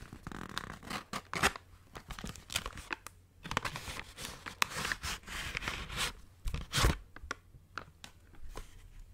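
A kraft-paper package and a beeswax-coated cloth food wrap handled right at the microphone: irregular crinkling with sharp crackles, in busy stretches broken by short pauses.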